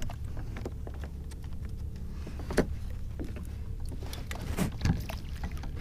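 Scattered knocks and handling noises as a freshly caught fluke is moved into a cooler bag on a kayak, over a steady low rumble.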